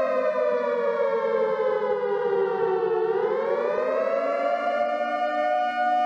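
Outdoor tornado warning siren sounding: its pitch sinks slowly for about three seconds, climbs back up, then holds steady in the wail of a tornado alert.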